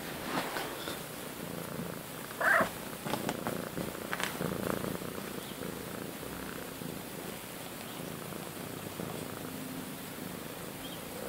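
Domestic cat purring steadily close up. A short, louder sound cuts in about two and a half seconds in, with a few soft rustles and knocks around it.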